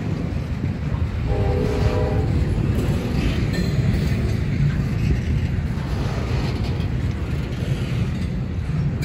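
Norfolk Southern intermodal freight train's double-stack well cars and flatcars rolling past on the rails, a steady low rumble of steel wheels on track. A brief tone lasting under a second sounds about a second and a half in.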